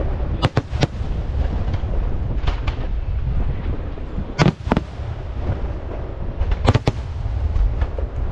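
Aerial fireworks shells bursting: sharp bangs in quick clusters of two or three, every two seconds or so, over a constant low rumble.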